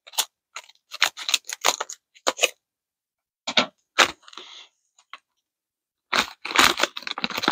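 Plastic snack bag crinkling and rustling in irregular bursts of crackles as it is handled and a chip is taken out. The handling is busiest near the end.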